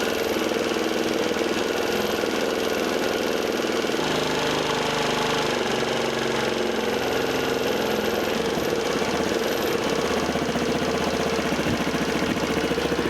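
Grom-clone mini bike's small engine idling steadily.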